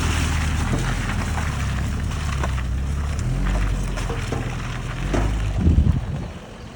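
Jeep Liberty KJ's diesel engine running as it drives over a rough off-road track, with stones and gravel clicking under the tyres. The engine note shifts about three seconds in, and a few louder knocks come near the end before the sound drops.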